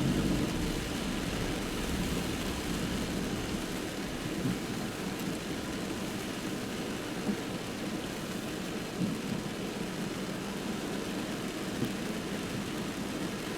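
Steady rumbling road noise of a car driving, with a few faint bumps along the way.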